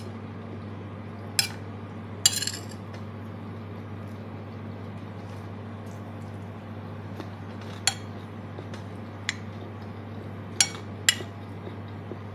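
A metal spoon clinking against a plate while eating rice, about six short, sharp clinks a few seconds apart, two close together about two seconds in and four in the second half. A steady low hum runs underneath.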